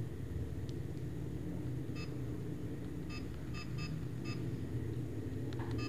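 Short electronic beeps from a cheap 4K sport action camera as its menu buttons are pressed: five quick beeps, the last three in fast succession, each marking a step through the settings list. A steady low hum runs underneath.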